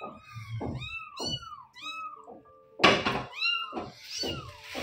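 Young Persian kitten mewing over and over in short, high mews that rise and fall, about three a second. The mewing breaks off briefly about halfway through, where a short thump is heard, then picks up again.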